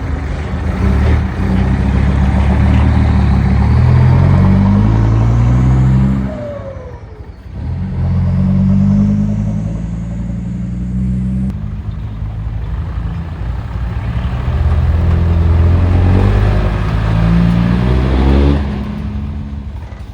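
Excavator working: the diesel engine and hydraulic pump howl, rising and falling in pitch as the revs and load change. The sound dips briefly about seven seconds in, then climbs again.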